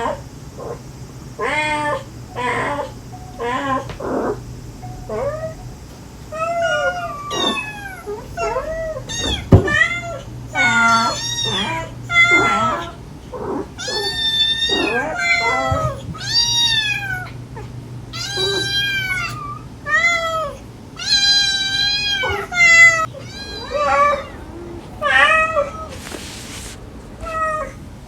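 A mother cat calling softly and her kittens mewing back, one call after another: a steady stream of short meows, many rising and falling in pitch, about one or two a second. A brief hiss-like noise comes near the end.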